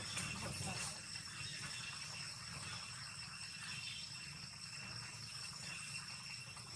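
Steady background insect chorus: several even, high-pitched trilling tones that hold without a break, over faint outdoor ambience.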